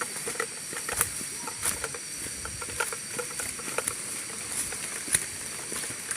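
Tropical forest ambience: a steady high-pitched buzz of insects, with scattered light ticks and rustles at irregular moments.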